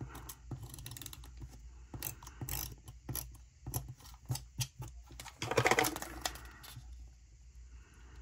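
Correction tape dispenser drawn across a paper planner page in short strokes, a run of small clicks and scratchy rolling. About five and a half seconds in there is one short, louder sound.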